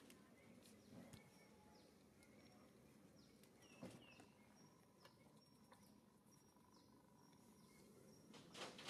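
Near silence: faint outdoor ambience with distant birds chirping in short, repeated high calls. There are soft knocks about four seconds in and near the end.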